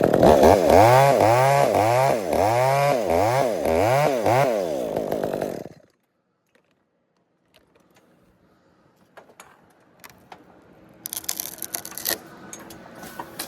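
Chainsaw cutting, its engine speed rising and falling over and over, then cutting off suddenly about six seconds in. Faint clicks and a crackling, rustling noise follow near the end.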